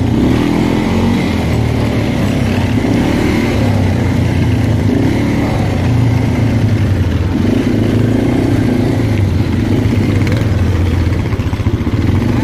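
Arctic Cat 400 ATV's single-cylinder four-stroke engine running, with the throttle opening and easing every couple of seconds.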